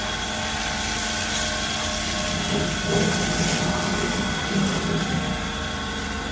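Steady machine hum with several held tones underneath, and a couple of brief louder low sounds about three and four and a half seconds in.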